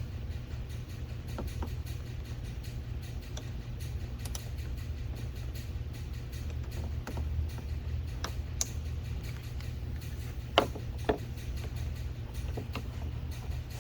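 Small plastic clicks and knocks from handling a car's door trim panels and clips, with two sharper clicks about ten and a half and eleven seconds in, over a steady low hum.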